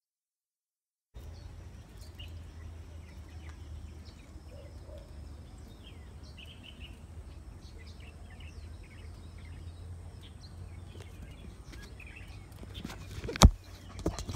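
Outdoor ambience that begins about a second in: scattered short bird chirps over a low steady rumble. Near the end comes one loud sharp knock, followed by a few smaller clicks.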